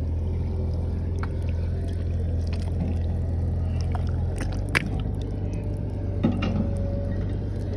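Gloved hands digging in wet mud and shallow water: faint squelching and splashing, with two sharp wet splats partway through, over a steady low drone.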